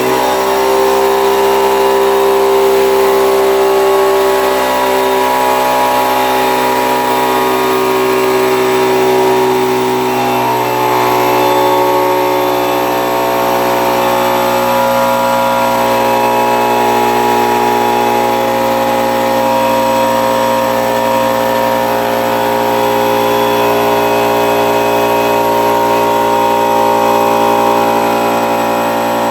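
Central Pneumatic 6-gallon oilless air compressor running loud and steady on its first run, its 1.5 hp motor and pump building pressure in the tank.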